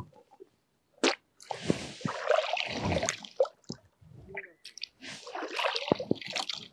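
Pond water scooped up by hand and rinsed around the mouth, with water splashing and dripping back into the pond. There is a short splash about a second in, then two longer stretches of rinsing and dripping a few seconds apart.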